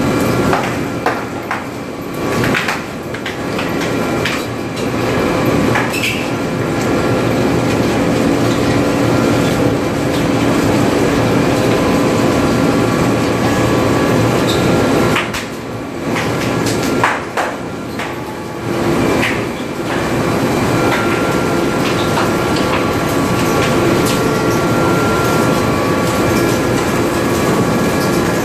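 Tyre-rubber factory machinery running, including a two-roll rubber mixing mill: a loud, steady mechanical drone with several held tones, broken by scattered knocks and clanks. The level dips briefly a couple of times.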